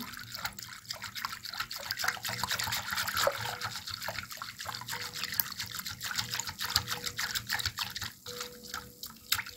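Silicone whisk beating a thin mixture of milk, yeast and sugar in a glass bowl: quick, continuous splashing and sloshing strokes of liquid.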